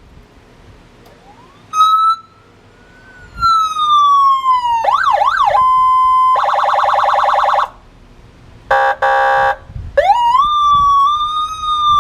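HornBlasters 100-watt electronic siren cycling through its tones: a wail that rises and slowly falls, a quick up-and-down yelp, a short steady tone, then a fast warble. After a short gap comes a buzzy horn honk, broken once, and near the end a wail rises again.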